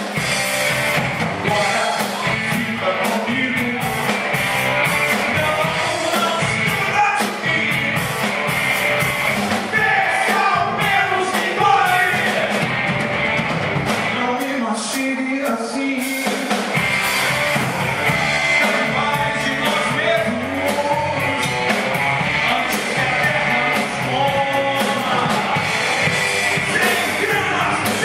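Rock song played by a band with drums, and a voice singing over it.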